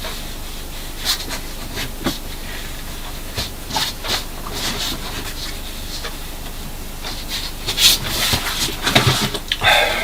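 Handling noise: rustles and light clicks as small things are moved and put away, over a steady hiss, busier and louder over the last two seconds.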